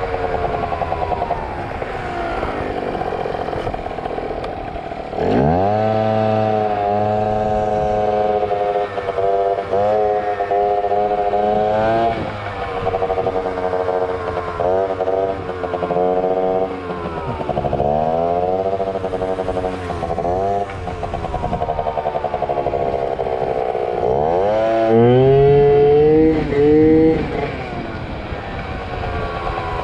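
Yamaha ZR Evo two-stroke scooter engine revved hard again and again, as the rider tries to lift the front wheel: a sharp rise in pitch about five seconds in, held and dropped back several times, with another hard rev near the end that is the loudest.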